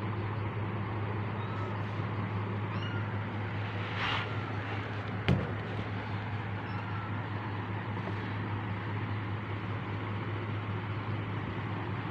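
A few faint, short, high kitten meows over a steady low machine hum and hiss, with a sharp click about five seconds in.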